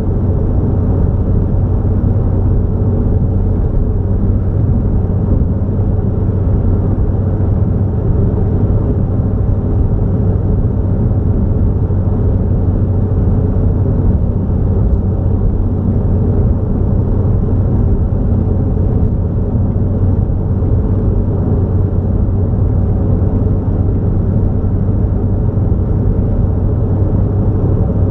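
A car driving along a road: a steady, unbroken low rumble of engine and tyre noise.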